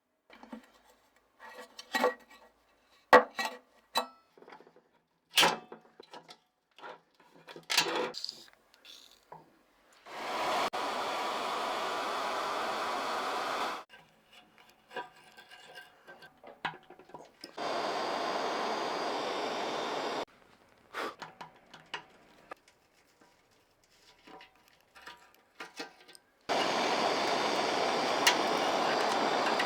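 Workshop work: sharp clicks and knocks of tools handling parts, then a power tool running in three steady stretches of a few seconds each, the last one carrying on to the end.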